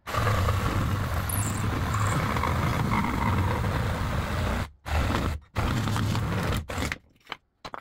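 Mastercraft cordless reciprocating saw cutting through very hard pallet wood. It runs for about four and a half seconds, stops briefly twice and starts again, then gives a few short blips and stops about a second before the end.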